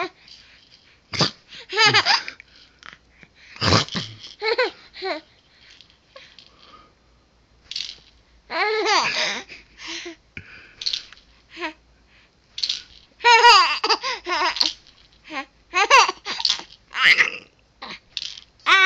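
A young child laughing and babbling in short, high-pitched bursts, with brief pauses between them.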